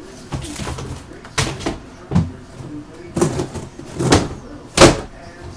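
A handful of separate knocks and bangs, about five, of things being handled and set down. The loudest comes near the end.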